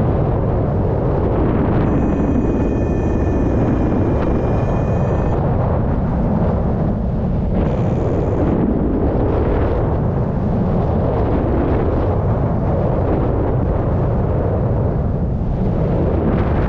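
Wind buffeting the microphone of a harness-mounted camera in paraglider flight: a loud, steady, low rumble. About two seconds in, a faint high tone with several overtones sounds for about three seconds.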